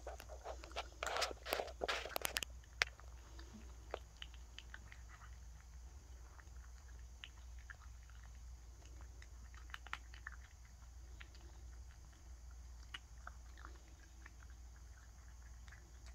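A cat crunching dry kibble from a stainless steel bowl: a quick run of louder crunches in the first couple of seconds, then quieter, scattered crunches.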